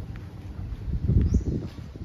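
Wind buffeting the microphone: an irregular low rumble that swells about a second in, then eases off.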